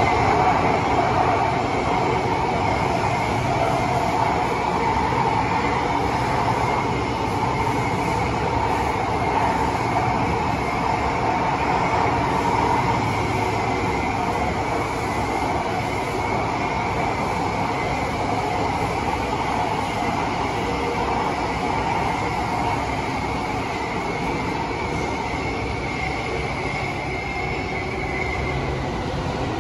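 Running noise inside the carriage of a Singapore Thomson-East Coast Line metro train under way between stations: a steady rumble of wheels and running gear with a thin high whine over it that fades out near the end.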